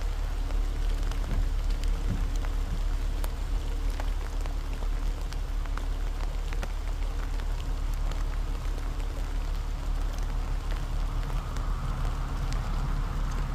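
Steady outdoor noise with a deep rumble and scattered faint ticks; the elk make no call.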